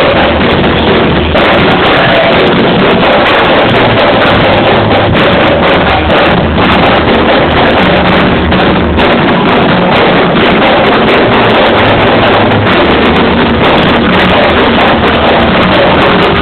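Go-go music played live, recorded so loud that it is heavily distorted. A bass line shifts between low notes under a dense, clipped wash of sound with frequent sharp hits.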